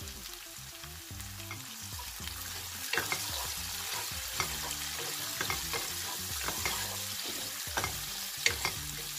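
Chopped onions, curry leaves and green chillies sizzling in hot oil in a nonstick wok. From about three seconds in, a wooden spatula scrapes and taps against the pan as they are stirred.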